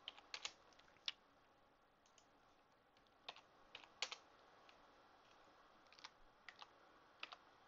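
Faint clicks of computer keyboard keys, about ten separate taps spread unevenly over several seconds with near-silent room tone between them.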